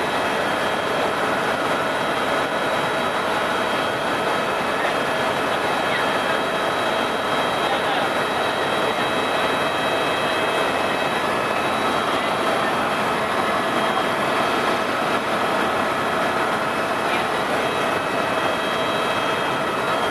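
Steady helicopter cabin noise in flight: a constant rush with an unchanging turbine whine.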